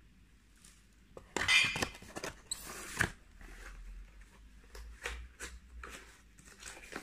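Packaging rustling and crinkling in irregular bursts, with a few sharp clicks, as a small dish is taken out of its wrapping. The loudest rustle comes about a second and a half in.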